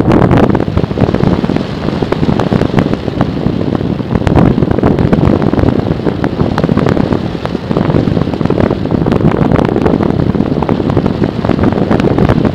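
Wind rushing and buffeting against the microphone of a camera mounted on an aircraft in flight: a loud, steady roar with constant crackling.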